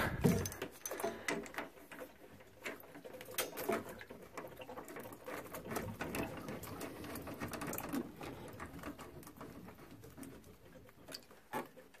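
Rubber hoses and brass valve fittings being handled and connected: irregular small clicks, taps and rubbing that thin out towards the end.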